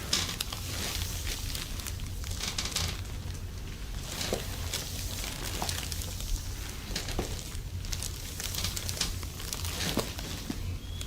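Soft rustling and crinkling of clothing and bodies moving during a hands-on massage, with a few light clicks, over a steady low hum.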